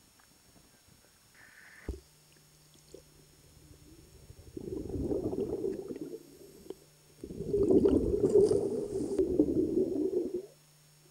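Scuba exhaust bubbles heard underwater, bubbling and gurgling past the camera in two long bursts, the second longer and louder. They come after a short knock about two seconds in, as the camera goes under, over a faint steady low hum.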